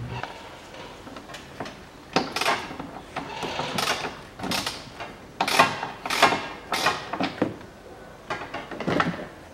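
A series of sharp metallic clanks and knocks, about ten over several seconds, as the Volkswagen Tiguan's front left suspension strut is worked loose and pulled down out of the wheel arch.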